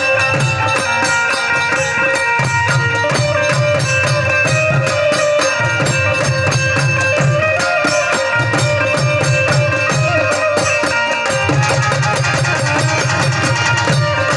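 Instrumental Gujarati garba music from a Ramamandal ensemble: held, steady melody notes over a fast, even drum rhythm with dense jingling percussion strokes.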